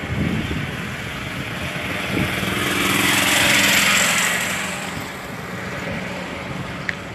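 A small motorised machine passing close by: a steady motor hum with a rush of noise that swells and fades, loudest about three to four seconds in.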